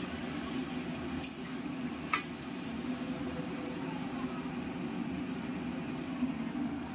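Two sharp metal clinks of a utensil against the cooking pot, about one and two seconds in, over a steady low kitchen hum.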